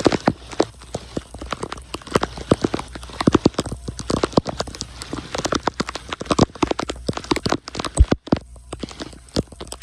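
Rapid, irregular clicks and knocks as a gloved hand scrapes and picks leaves and debris off a metal storm drain grate.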